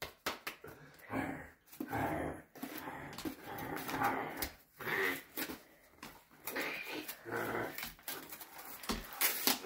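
Dog growling in short bouts while tugging at a piece of cardboard, with cardboard crinkling and ripping in its teeth.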